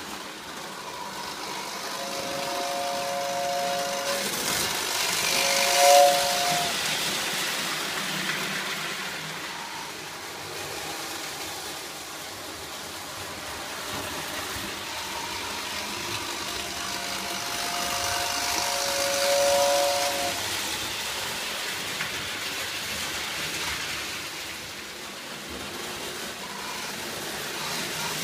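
Lionel prewar O gauge whistle tender sounding its motor-driven two-tone whistle: a long blast, a short one, then after a pause a longer blast. Under it runs the steady whirr and rattle of the toy steam train moving along its track, swelling and fading.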